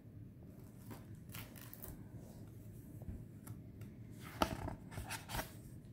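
Quiet handling of a paperback book: scattered soft clicks and rustles of fingers on the cover and pages, with the sharpest click about four and a half seconds in.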